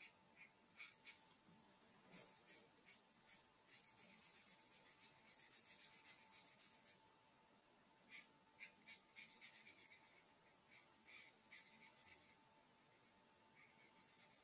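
Felt-tip marker faintly scratching on squared notebook paper in quick back-and-forth colouring strokes, with a fast run of strokes about four seconds in lasting some three seconds, and another run after about nine seconds.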